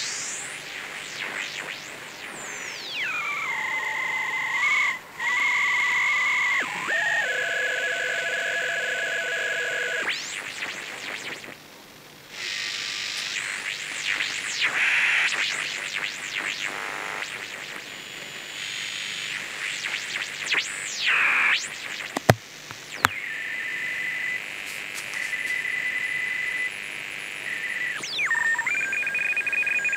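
Shortwave regenerative receiver (Twinplex circuit, type 19 tube) being tuned across the band: whistles sweep up and down in pitch as the tuning passes station carriers, settling into held steady tones between sweeps, over static hiss. These are the beat notes of the oscillating regenerative detector against the carriers. Two sharp clicks come about two-thirds through.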